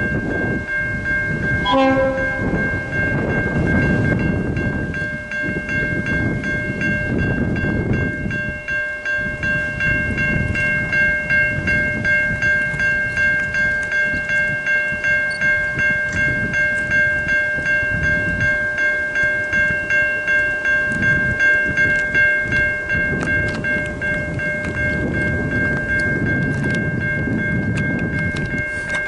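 Level crossing warning bells ringing as the boom gates lower, pulsing about twice a second over steady ringing tones, with a low rumble underneath.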